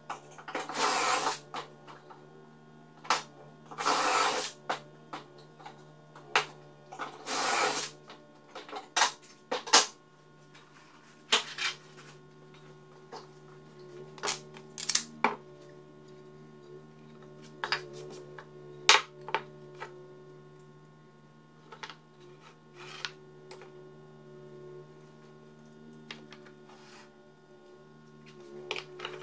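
Workshop handling noise: wooden parts knocked and set down on a plywood workbench, with three rough scraping noises of about a second each in the first eight seconds and scattered clicks and clatters after, over a steady low hum.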